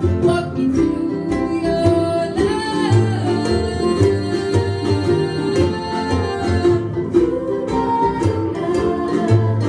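Live son jarocho band playing: jaranas strummed in a steady rhythm over upright bass and a wooden box drum, with a woman singing lead into a microphone.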